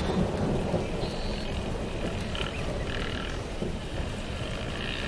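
Distant dirt bike engines revving on and off across the course, over a steady low rumble.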